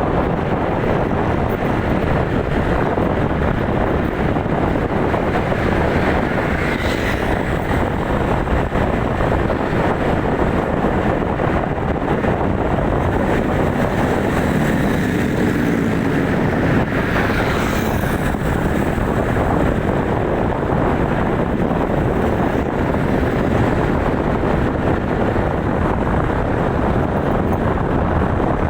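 Steady, loud engine rumble mixed with wind buffeting the microphone. Twice, about seven and seventeen seconds in, a brief higher sound rises above it.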